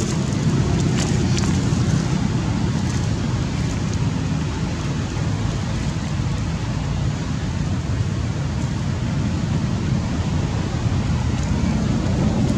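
Steady low rumbling outdoor background noise, with a few faint clicks in the first few seconds.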